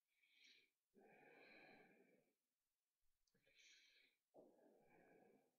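Near silence except for a person's soft breathing close to the microphone: two slow breaths, each an in-breath followed by a longer out-breath.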